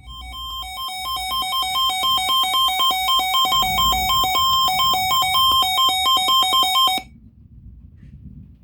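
Emergency alert alarm for a severe thunderstorm warning: an electronic two-tone beeping that switches rapidly between a higher and a lower pitch. It swells in loudness over the first couple of seconds, holds steady, then cuts off suddenly after about seven seconds.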